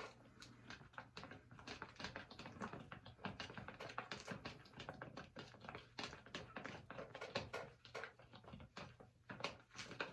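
Stirrer clicking and tapping against the sides of a container as glue is mixed with yellow food colouring: a rapid, irregular run of faint light clicks.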